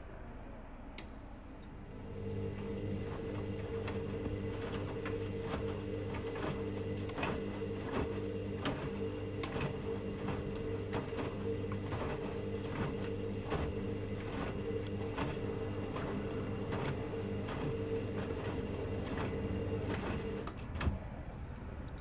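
Hoover Dynamic Next front-loading washing machine in its main wash: the drum motor starts about two seconds in and runs with a steady hum while the drum tumbles the wet laundry, with repeated splashing and soft thuds about twice a second. The motor stops near the end with a knock; a sharp click comes about a second in.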